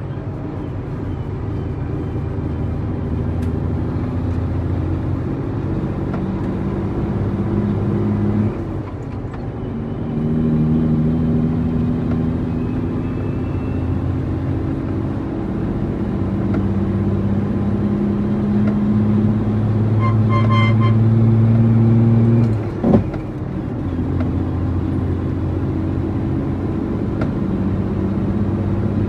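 International 9300 truck's diesel engine running steadily under way. The engine note dips and picks up again twice, once about eight seconds in and again with a sharp click a little past twenty seconds in.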